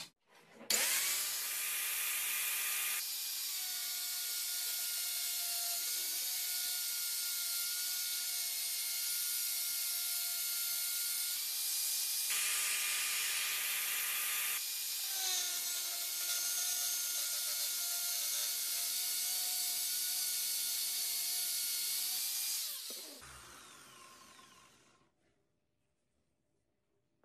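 Electric angle grinder spinning up, then running steadily with a high whine as its abrasive cut-off disc saws a lengthwise slot in PVC pipe, with a rougher, noisier stretch partway through. Near the end it is switched off and winds down.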